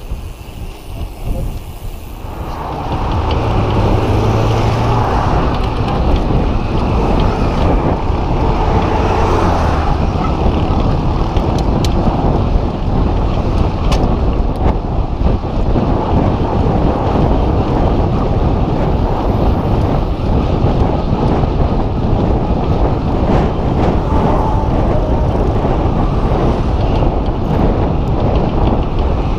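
Steady wind rush on an action camera's microphone while riding a mountain bike along a paved road, starting about two and a half seconds in.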